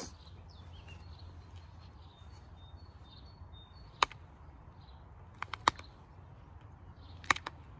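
Sharp clicks of small flakes snapping off the edge of a creek-flint knife blade held in a leather pad, as the edge is pressure-flaked sharp: one click about halfway through, then two quick clusters of three near the end.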